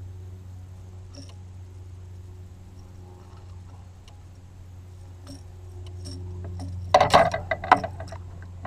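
Fishing pliers and a lure's hooks clicking and jangling as the hooks are worked free of a bass's mouth: a few faint clicks, then a burst of sharp metallic rattling about seven seconds in. A low steady hum runs underneath.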